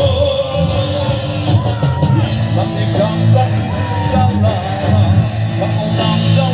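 Live rock band played through a large concert sound system, with a singer holding long sung notes over the guitar-backed band.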